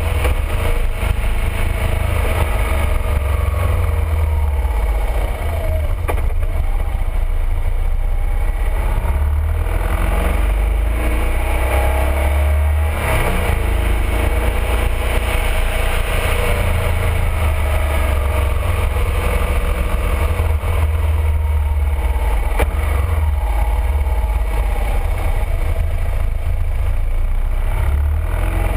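BMW R1200RT's boxer-twin engine on the move through a run of bends, its pitch rising and falling with the throttle, over a heavy, steady rumble of wind on the fairing-mounted camera.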